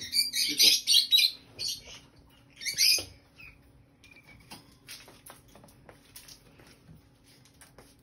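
Shrill chattering calls from a pet parrot in short bursts, loudest in the first second and again about three seconds in, then a few faint clicks and taps.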